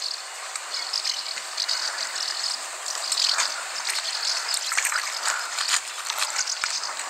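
A small hooked fish splashing and thrashing at the water's surface, heard as a scatter of small splashes and ticks over a steady hiss. The splashing is densest around the middle.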